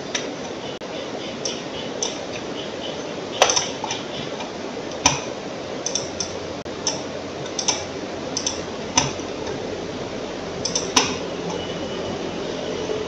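Computer mouse clicking at irregular intervals, some in quick pairs, over a steady background hiss.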